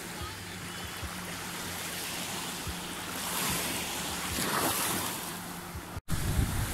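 Gentle sea waves washing in the shallows, swelling a little midway, with a faint steady low hum underneath at first. The sound drops out for an instant near the end, after which wind buffets the microphone.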